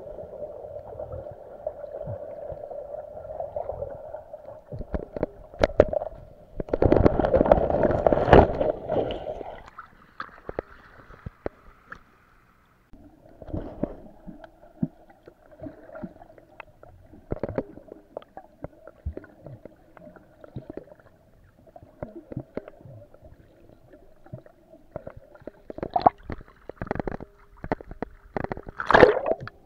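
Water sounds picked up by a camera underwater: a steady hum that drops out for a few seconds, scattered clicks and knocks, a loud rush of water about seven seconds in, and splashing near the end as the camera comes up through the surface.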